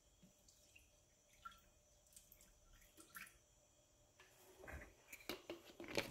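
Faint trickle and drips of milk being poured into a Thermomix's stainless-steel mixing bowl, with a few light clicks and knocks near the end.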